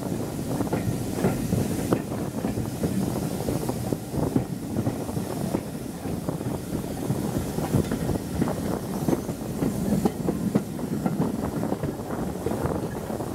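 Steam-hauled passenger coach running along the track, a steady low rumble with wheels clicking and knocking irregularly over rail joints and pointwork.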